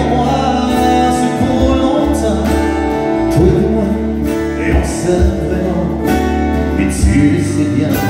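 Live country song: a strummed acoustic guitar with a man singing over it.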